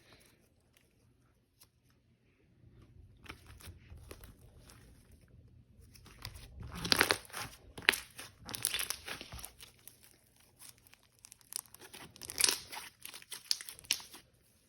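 Jelly-textured slime being squished and stretched by hand, making sticky crackling, clicking and popping sounds in uneven bursts that begin a couple of seconds in.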